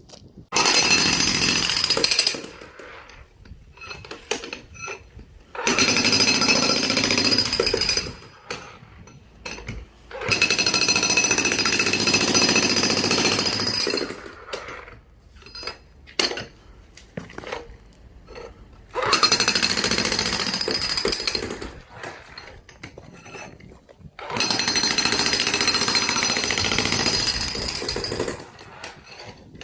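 Hilti TE 3000-AVR electric jackhammer breaking up a concrete sidewalk, running in five bursts of a few seconds each with short pauses between.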